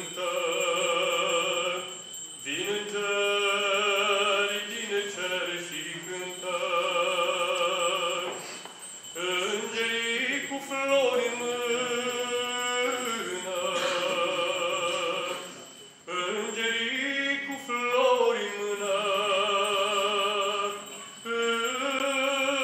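A man singing a Romanian Christmas carol (colindă) solo, in long held notes with a wavering vibrato, phrase after phrase with short breaths between.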